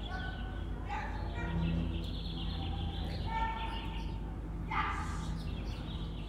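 A dog barks twice, about a second in and again near five seconds, over a steady low hum.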